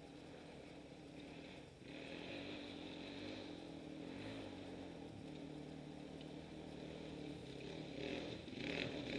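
Distant dirt bike engines running, faint at first and growing louder as the bikes come closer along the trail.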